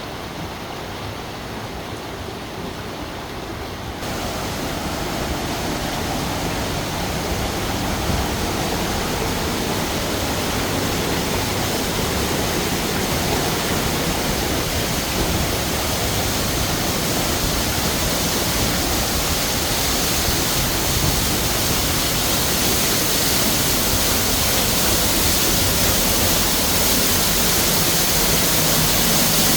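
Steady rushing of falling water, with a step up in level about four seconds in, then growing gradually louder.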